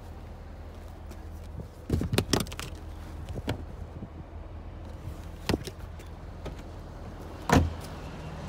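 A few knocks and clicks as the trunk of a 2018 Buick LaCrosse is handled, then the trunk lid slammed shut with a single heavy thud near the end, the loudest sound.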